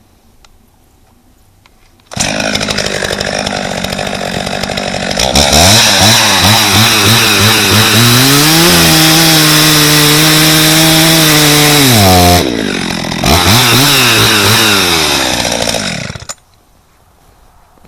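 Husqvarna 50 two-stroke chainsaw coming in at idle about two seconds in, then revved up and held at high revs with a steady high pitch. It drops back briefly, revs again, and stops suddenly near the end.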